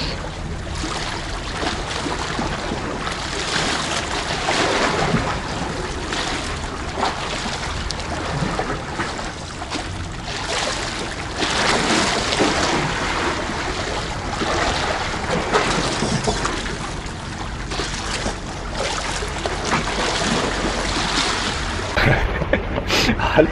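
Sea waves washing and sloshing among the concrete tetrapods of a breakwater, swelling and easing every few seconds, with wind buffeting the microphone. A few sharp knocks near the end.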